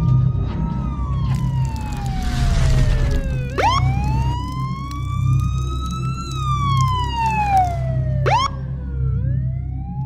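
Siren wailing in a slow falling and rising tone, with two quick sharp chirps, one about a third of the way in and one near the end, over a steady low hum.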